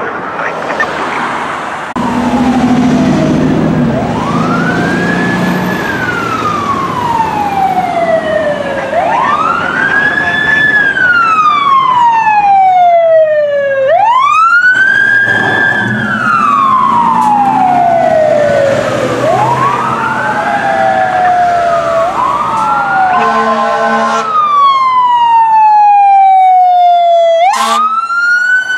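Fire engine and rescue ambulance sirens on an emergency run: a loud wailing siren that rises quickly and falls slowly about every five seconds, with a second, higher siren joining near the end and short horn blasts.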